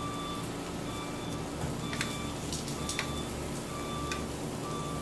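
A vehicle's reversing alarm beeping steadily, about one short beep a second, over a low steady hum, with a couple of sharp clicks near the middle.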